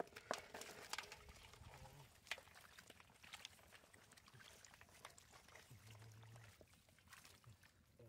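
Catfish flapping and slapping against a plastic basket and basin while muddy water splashes and drains through the basket's mesh: a flurry of wet clicks and splashes in the first few seconds, sparser after.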